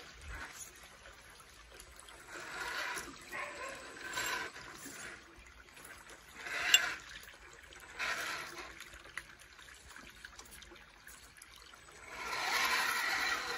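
RC rock crawler truck creeping over loose creek stones in several short bursts of driving, tyres and chassis scraping rock, with one sharp knock of stone about seven seconds in; shallow creek water trickles underneath.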